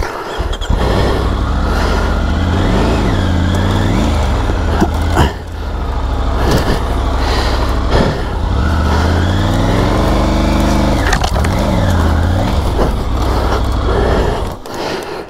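Triumph Tiger 900 GT Pro motorcycle's three-cylinder engine running at low speed off-road, its revs rising and falling several times as the throttle is worked over rough ground. A few sharp knocks sound in the middle.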